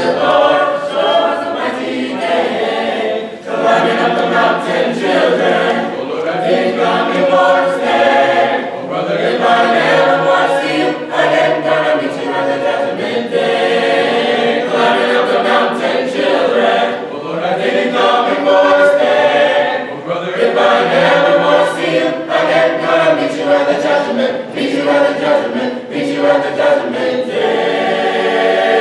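Mixed-voice choir singing a cappella in harmony, with no instruments, settling onto a held chord near the end.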